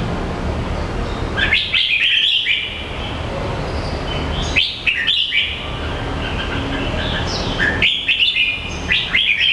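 A bird the uploader calls a jambul, chirping in three bursts of quick, sharp, high notes a few seconds apart, over a steady low background rumble.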